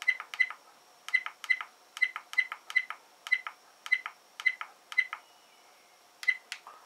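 G1WH dash cam's button-press beeps: about a dozen short high beeps, each with a click, come in quick succession as a menu button is pressed over and over. After a pause, two more follow near the end.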